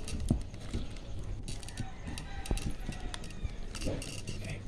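Irregular small metallic clicks and scrapes of a U-shank jigsaw blade being worked in and out of a T-shank jigsaw's blade clamp, which does not lock it, so it pulls out easily.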